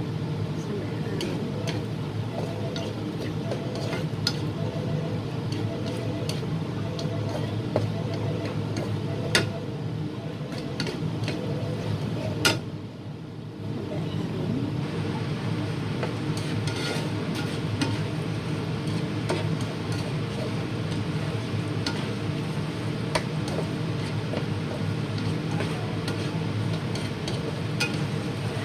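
Goat meat sizzling in a frying pan while a slotted spatula stirs and scrapes it, with frequent small clicks of the spatula on the pan. There are two sharper knocks about nine and twelve seconds in, over a steady low hum.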